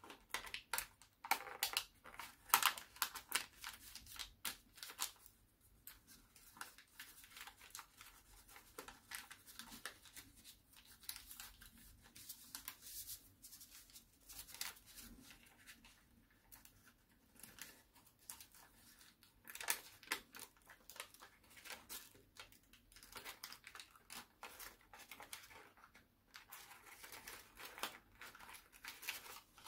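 A square sheet of origami paper being folded by hand: irregular crinkling and short crackles as creases are pressed and flattened, coming in clusters with brief lulls.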